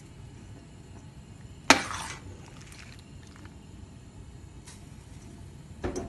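A metal slotted spoon clanking against a stainless steel colander as boiled watermelon rind is tipped in to drain. One sharp clank with a brief ring about two seconds in, and another near the end.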